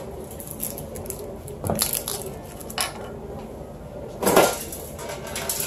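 Clinks and knocks of containers being handled while a refrigerator is cleared out, a few separate ones with a louder clunk about four seconds in.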